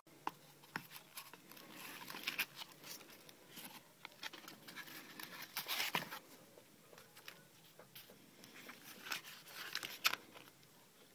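Unboxing handling noise: rustling and crinkling of plastic and paper packaging in several bursts, with scattered clicks and knocks and one sharp click near the end as a folded paper guide is opened.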